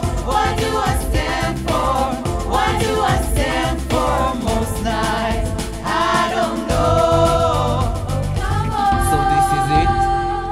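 Young vocal ensemble singing in harmony into handheld microphones over a pop backing track with a steady beat, holding one long note near the end.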